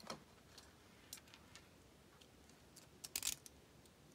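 Faint clicks and ticks from handling a die-cast model car and a snap-off utility knife, with a quick run of sharper clicks a little past three seconds in.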